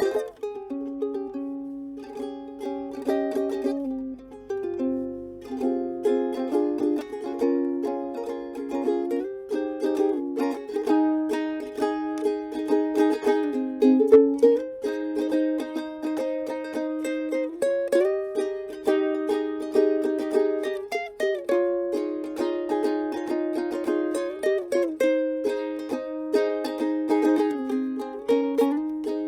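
Owl Workshop Moul ukulele played solo for a sound test. It is picked as a melody over chords, and a few notes slide in pitch.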